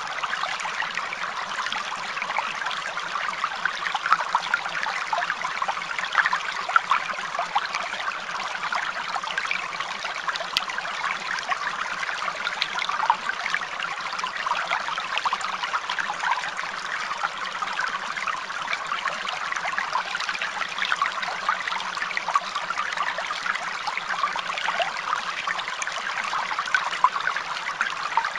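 Steady trickling running water, with a continuous fine crackle and no pauses.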